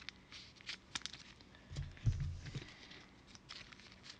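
Faint handling noise from trading cards and a foil pack: scattered light clicks and rustles, with a few soft low thumps about two seconds in.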